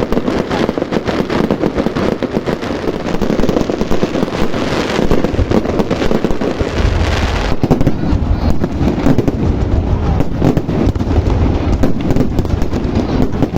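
Fireworks display: a dense, continuous barrage of bangs and crackling. About seven seconds in, the deep booms grow heavier and the high crackle thins.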